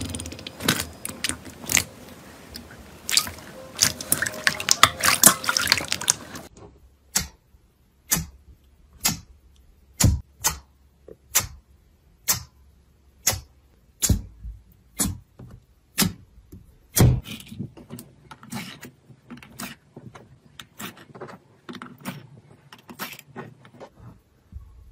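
Wet squelching and crackling as a hand squeezes clear, jelly-like blue slime in a metal bowl. After about six seconds it changes to sharp pops about once a second as fingers poke into thick pastel slime packed in a plastic tray, then smaller, quicker crackles as the slime is worked and pulled out.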